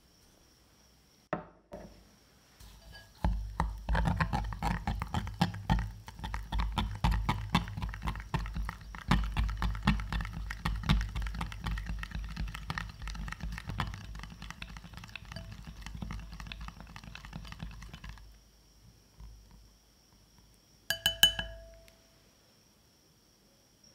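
Silicone spatula stirring a runny garlic butter sauce of melted butter, garlic and parsley in a glass bowl: a rapid run of wet scraping and clicking against the glass that starts a few seconds in and stops well before the end. Near the end the glass bowl gives a single short clink that rings briefly.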